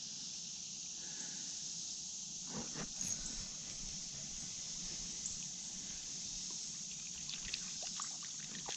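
Steady high-pitched hiss of creek-side outdoor ambience, with a few faint clicks.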